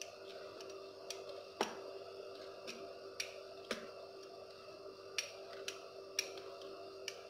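A steel wheel cutter ticking against a wooden board as it cuts lines through rolled dough: sharp, irregular clicks, roughly one or two a second, over a steady low hum.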